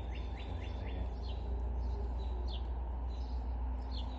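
A songbird calling: a quick run of short falling chirps at the start, then single falling chirps about every second and a half, over a steady low rumble.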